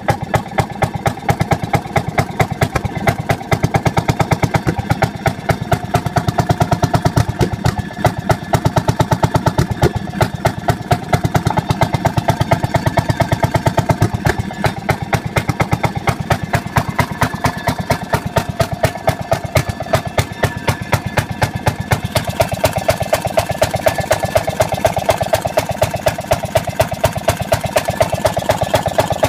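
1952 Fairmont M14 railroad motorcar's engine idling steadily, a rapid and even beat of exhaust pulses.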